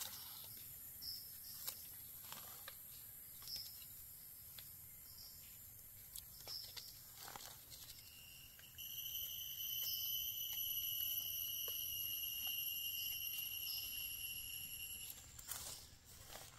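A knife scraping and cutting into forest soil and leaf litter while digging out mushrooms, in soft scattered scrapes and crunches. About nine seconds in, a steady high whistle sets in and holds for about six seconds, over faint high chirps that repeat every second or so.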